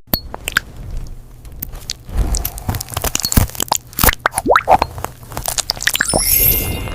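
Gel plugs being squeezed and pulled out: a rapid, irregular run of wet crunching clicks and short squelches, with a bright chime near the end.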